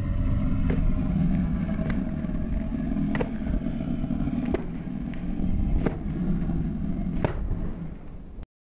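Low rumbling wind noise on the camcorder microphone, with a faint click about every second and a half, cutting off abruptly near the end.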